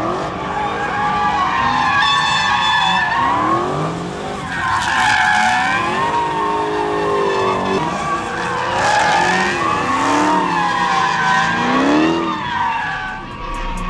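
Hot rod doing a burnout: the engine revs up and down again and again while the spinning tyres squeal in a steady, wavering whine.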